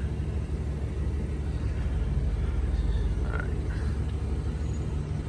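Chevrolet 2500 HD's 6.6-litre gas V8 running steadily near idle, heard from inside the cab as the truck creeps slowly forward.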